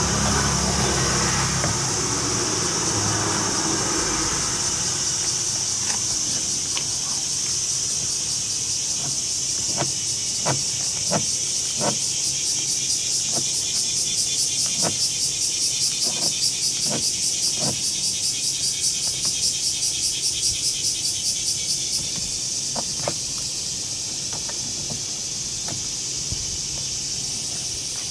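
Insects chirring outdoors in a steady high drone, joined by a fast-pulsing insect call for about ten seconds in the middle. Scattered light clicks and taps from hand work on the truck seat, and a low rumble in the first few seconds.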